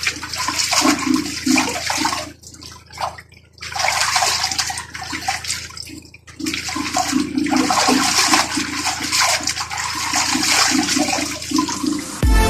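Water rushing and splashing in a washing machine, in surges with two brief breaks. Electronic music comes in at the very end.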